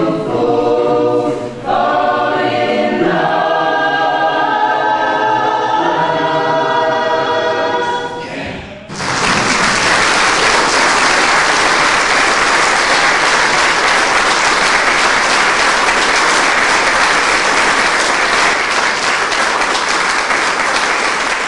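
A mixed choir singing, which ends about eight seconds in and gives way to steady audience applause.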